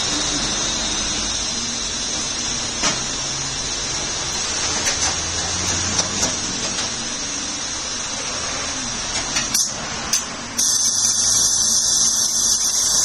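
Tyre-shop workshop noise: a steady hiss with scattered clicks and taps. About ten and a half seconds in, a louder, even hiss of compressed air starts and cuts off just before the end.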